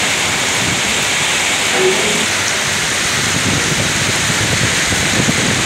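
Heavy rain pouring down in gusty wind, a loud, steady, dense hiss that does not let up.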